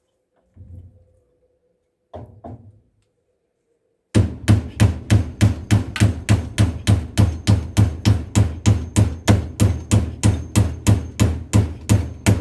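Hammer driving nails into wooden boards, a fast, even run of sharp blows at about three or four a second, starting about four seconds in.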